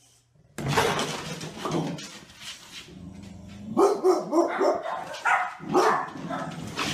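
Dog barking repeatedly, starting suddenly about half a second in, with a quick run of short barks in the second half.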